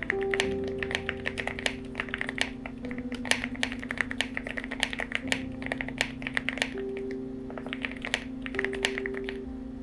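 Typing on a Nut75 mechanical keyboard with lubed Milky Yellow switches, Ragdoll keycaps and full foam: a fast, uneven stream of "thocky" keystrokes, over background music with held notes.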